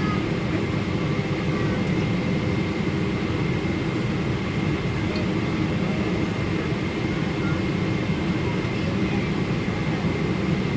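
Steady cabin noise inside a Boeing 777 airliner in flight: an even rush of engine and airflow noise with a faint, steady high whine over it.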